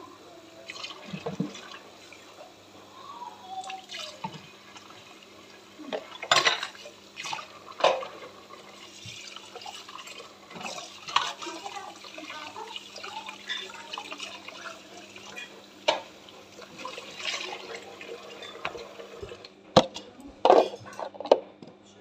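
Kitchen tap running into a sink while glasses and a plastic bottle are rinsed by hand, with occasional clinks and knocks of the dishes against the sink. The water stops near the end and a few louder clatters follow.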